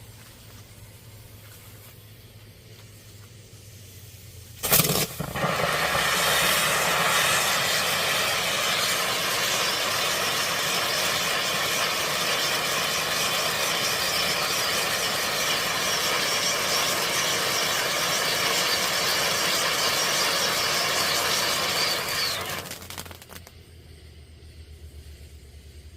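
Fire Factory 'Funhouse' firework fountain igniting with a sharp pop about five seconds in, then spraying with a loud, steady hiss for about eighteen seconds before dying away near the end.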